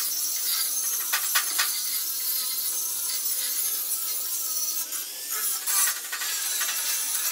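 Metalworking tool noise: a steady high-pitched hiss of metal being cut or ground, with a few sharp clicks about a second in and again near the end.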